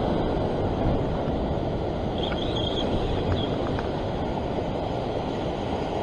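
Heavy ocean surf breaking against a rock shelf: a steady, rumbling rush of water noise.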